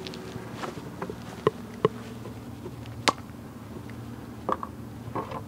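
Aerosol spray can being handled: a few light clicks and one sharp plastic snap about three seconds in as the cap comes off. Under it runs a steady low buzzing hum.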